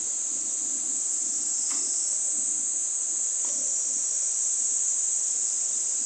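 A steady, high-pitched chorus of insects shrilling without a break, over a faint low rush.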